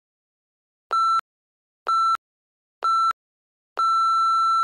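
Workout interval timer counting down: three short electronic beeps a second apart, then one longer beep at the same pitch, marking the end of the 30-second work interval.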